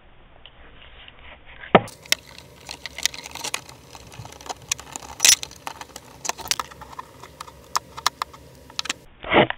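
Scattered clicks and knocks of plastic and metal parts as an airsoft AK47's battery cover is worked into place over a freshly fitted battery, with a louder knock about two seconds in and a heavier thump near the end.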